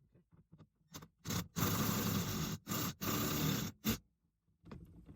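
Mounting nut on the accelerator pedal's stud grinding and creaking as it is turned on against resistance: a few light clicks, then about four noisy strokes of up to a second each. The noise is typical of a lock nut, as the installer suspects.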